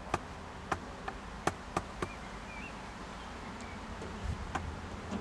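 A run of sharp, irregular clicks, about six within the first two seconds, then steady outdoor background with a faint short chirp near the middle.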